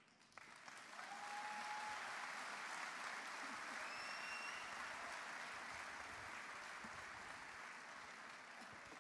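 Large crowd applauding. The applause starts about half a second in and slowly dies down toward the end.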